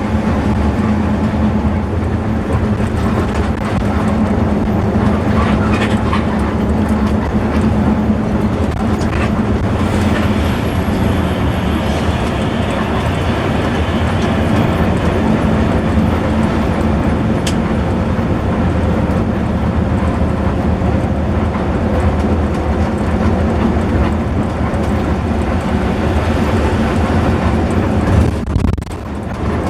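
Intercity bus under way: its engine drones steadily under a haze of road and running noise, with a brief drop in level near the end.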